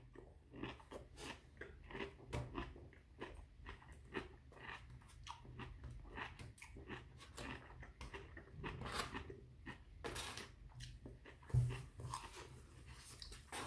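A person chewing a mouthful of pickled sushi ginger close to the microphone: a run of small crunching clicks, two or three a second, with a few louder crunches near the end.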